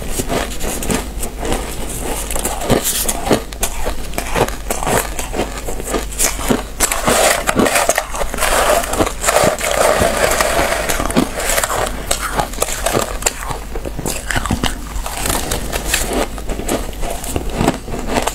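Close-miked crunching and squeaking of frozen shaved ice chunks being bitten and chewed, a dense run of sharp crackles. Around the middle comes a rougher, grinding stretch as gloved hands dig into and squeeze the ice in the metal tray.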